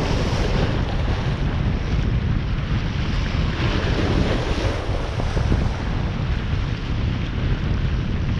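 Wind buffeting the microphone: a steady, low, rumbling rush that rises and falls.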